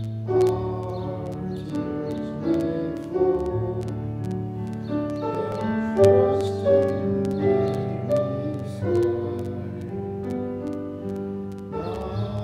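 A slow Buddhist gatha (hymn) sung with piano accompaniment: sustained chords changing about once a second beneath wavering voices.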